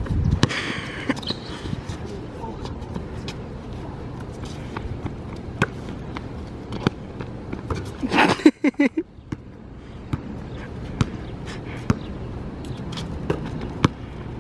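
A basketball being dribbled on an outdoor asphalt court: sharp, irregular bounces over a steady background hum. About eight seconds in, as a shot goes up, there is a short, loud shout.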